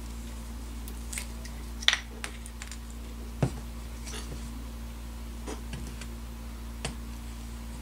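Plastic cap of a bottle of urethane Gorilla Glue being twisted and worked open by hand: a scatter of small plastic clicks and taps, the sharpest about two seconds in, over a steady low hum.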